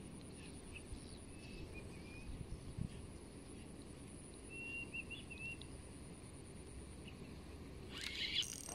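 Quiet pondside ambience: a low, even wind rumble and a faint steady high tone, with a few short high bird chirps about two and a half seconds in and again around five seconds. Rustling handling noise starts near the end.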